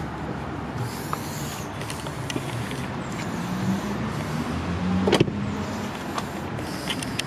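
Steady motor vehicle noise, with a shifting low hum and a single sharp knock about five seconds in.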